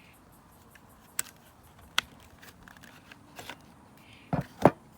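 Blade wrench being handled and fitted into the onboard wrench storage slot on a Dewalt DCS575 cordless circular saw's housing: a few sharp clicks, then two louder knocks a little past four seconds in.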